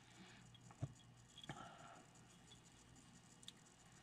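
Near silence, with a few faint taps and rustles from a knife and its leather sheath being handled.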